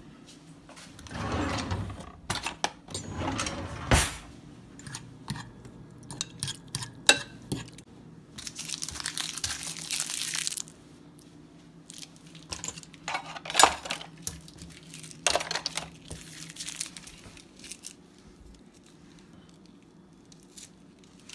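Handling noises in a small room: rustling and crinkling, a stretch of tearing-like rustle about nine seconds in, and a series of sharp knocks and clicks, the loudest around four and thirteen seconds in.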